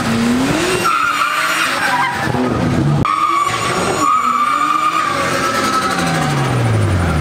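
Car tyres squealing on asphalt in two long screeches over a revving engine. Near the end, the engine revs fall away.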